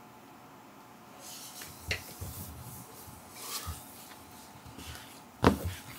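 Quiet room with soft rustling, a click and a few light thumps, then a sharper knock about five and a half seconds in.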